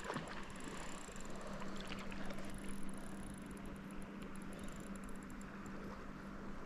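River water rushing steadily, with a steady low hum and faint rapid high ticks through the first half.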